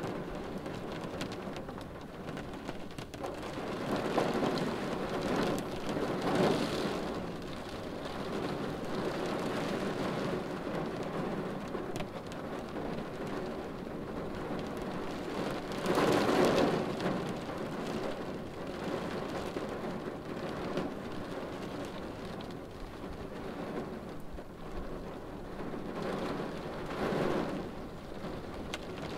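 Rain pattering steadily on a car windshield, heard from inside the car, swelling louder a few times as the rain comes down harder.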